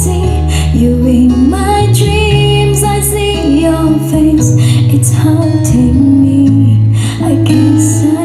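Music: a slow song, a gliding melody line over a loud, steady bass.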